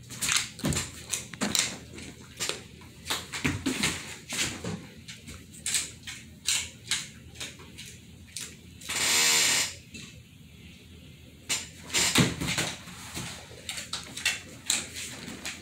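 German Shepherd's claws clicking and tapping on a hardwood floor as it walks and searches about, in irregular bursts, with one short hissing rush about nine seconds in.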